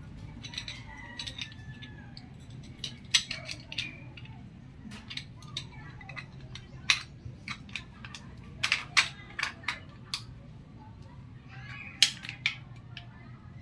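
Irregular sharp metallic clicks and clinks, a dozen or more scattered through, the loudest about three, seven, nine and twelve seconds in, over a low steady hum.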